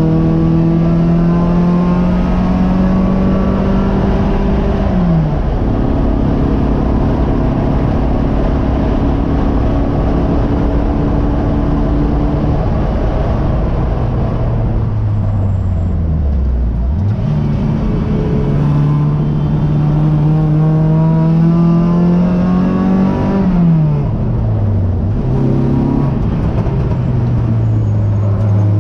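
Race car engine heard from inside the car under racing load. It climbs in pitch while accelerating and drops sharply about five seconds in, then holds steady. Its pitch falls for several seconds as the car slows, climbs again, and drops twice near the end.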